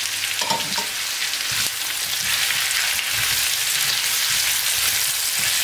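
Chicken and vegetables sizzling steadily in oil in a frying pan, with a few soft knocks and scrapes from a spatula stirring.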